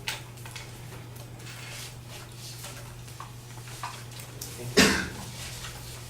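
Room noise over a steady low electrical hum, with a few small clicks and knocks and one loud thump about five seconds in.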